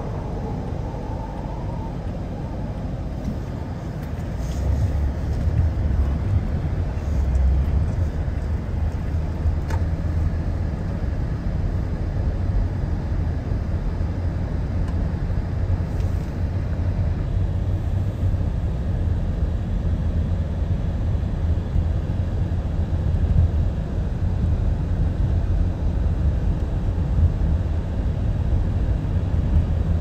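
Strong blizzard wind buffeting the microphone: a steady rushing, rumbling noise that grows heavier about four seconds in.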